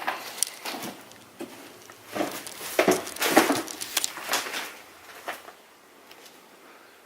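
Footsteps crunching and knocking over a debris-strewn floor: irregular crunches, loudest in the middle, dying away about two seconds before the end.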